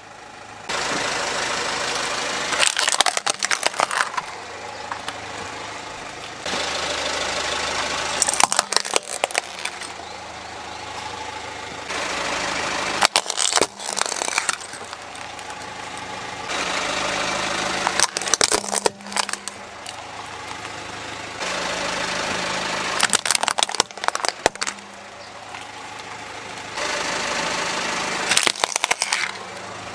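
Car tyre rolling slowly over small plastic and toy objects and crushing them: a short burst of cracking and crunching about every five seconds, six in all, over the car's engine idling.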